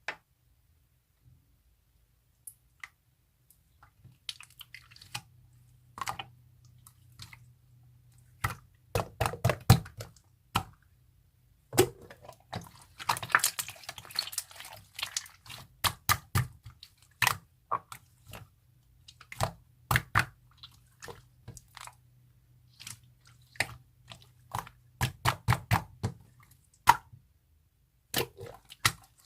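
Slime being squeezed and pressed by hand, giving irregular sharp wet clicks and pops with soft crackly squishing. It begins after a few seconds of near silence and comes in busier clusters.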